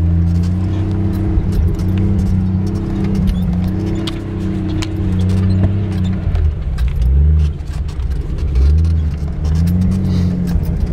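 Jeep engine running under load, heard from inside the cabin, its pitch dipping and climbing again around seven to nine seconds in. Frequent sharp rattles and clicks from the vehicle's interior and loose items jostling over rough ground.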